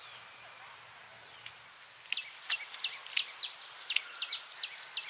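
A bird calling: a quick series of sharp, falling chirps, about three a second, starting about two seconds in over faint outdoor hiss.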